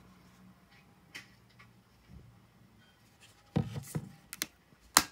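Plastic bottle of sweet almond oil being handled and opened. After a quiet start there is a cluster of knocks and rubbing about three and a half seconds in, then a few small clicks, and a sharp click near the end.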